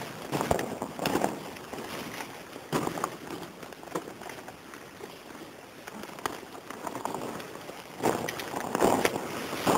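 Footsteps scuffing and crunching on the rough floor of a disused railway tunnel, in an uneven walking rhythm. They are heavier at the start and again near the end, and lighter in between.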